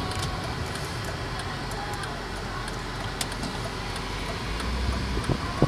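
Interior cabin noise of a 1997 BMW 740iL on the move: its 4.4-litre M62 V8 running under a steady low rumble of tyre and road noise, with a few faint clicks near the end.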